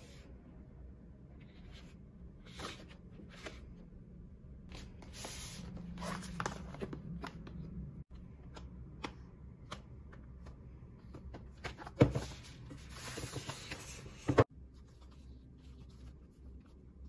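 Cardboard and paper packaging being handled: rustling and sliding of the boxes and paper wrap, with short taps and two sharp knocks, about twelve and fourteen seconds in, the loudest of them.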